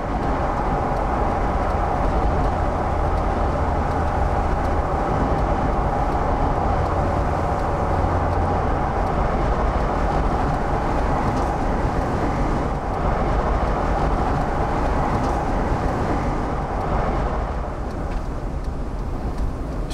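A car driving at highway speed, with steady engine and road noise heard from inside the vehicle.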